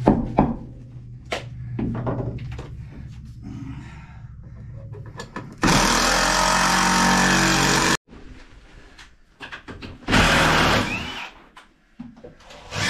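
Cordless power driver running screws into wooden floor framing: a loud whirring run of a couple of seconds about halfway through, and a shorter burst near the end, with scattered knocks of wood and tools before.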